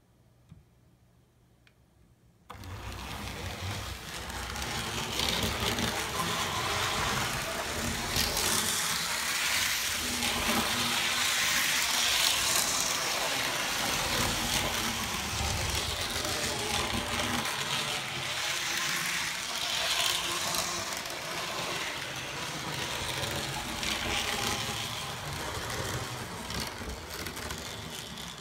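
N scale Arnold Southern 4-6-2 Pacific model steam locomotive running on its track: the whir of its small electric motor and gearing, starting suddenly about two and a half seconds in and growing louder and softer by turns, fading near the end.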